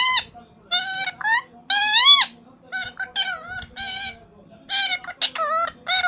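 Rose-ringed parakeet calling over and over: about ten short, high-pitched squawks, some bending in pitch, with one longer rising call about two seconds in.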